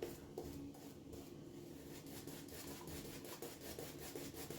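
Shaving brush painting lather around a shaving dish: faint, continuous soft brushing and rubbing of wet bristles on soap. A little water has just been worked into the stiff, pasty lather, which is being painted until it thickens up again.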